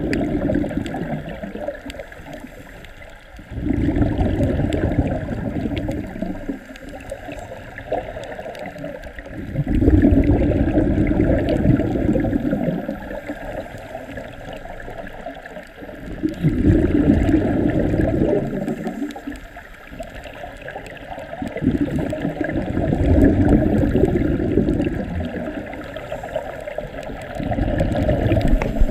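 Scuba regulator exhaust bubbles heard underwater: a low, gurgling rush of exhaled air in bursts about every six seconds, one per breath, with quieter gaps between.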